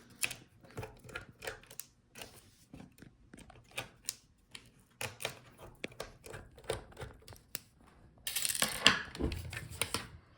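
Irregular light clicks and taps of a screwdriver and small metal parts as a laptop display hinge is unscrewed and taken off, with a louder stretch of rustling and a knock about eight to nine seconds in.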